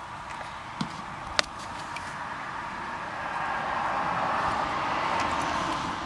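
A car passing by, its noise swelling over a couple of seconds and then easing off, with a sharp click a little over a second in.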